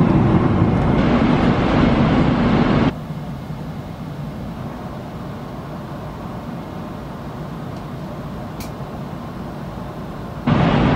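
Steady in-flight cabin noise of a Boeing 777-300ER, a low roar with a hum under it. About three seconds in it drops abruptly to a much quieter steady hiss with one faint click, then comes back to full loudness near the end.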